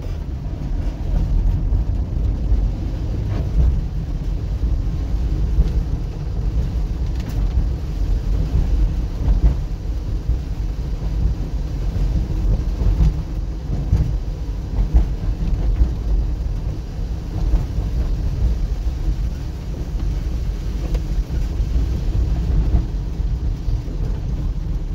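Car driving on a rain-wet street, heard from inside the cabin: a steady low rumble of engine and tyres.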